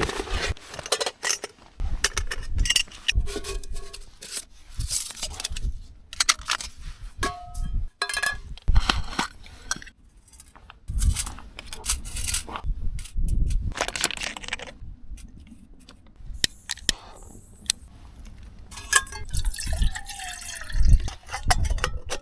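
Camping cook gear being handled and set up: irregular clinks and knocks of metal pot, kettle and stove parts, with liquid being poured.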